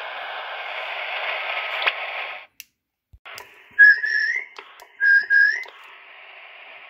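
Receiver hiss from a (tr)uSDX shortwave transceiver tuned to upper sideband, cutting off abruptly about two and a half seconds in. After a short gap the hiss returns with two short rising whistle tones, then carries on more quietly.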